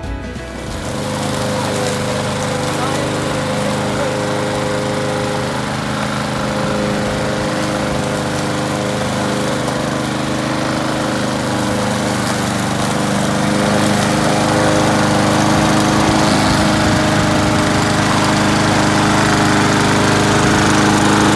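Walk-behind gasoline rotary lawn mower running steadily as it is pushed across grass, getting a little louder about two-thirds of the way through.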